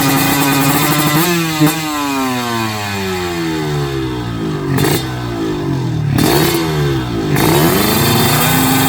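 Kawasaki Ninja drag-race motorcycles at high revs, rising in pitch about a second in as they launch, then pulling away with their engine notes falling in pitch; a second falling pass follows a few seconds later, and a steady high-revving note holds near the end.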